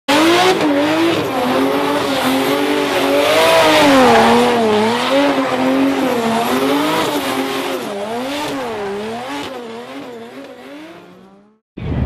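Drifting car's engine held at high revs, its pitch wavering up and down, over tyre noise; it fades away over the last few seconds.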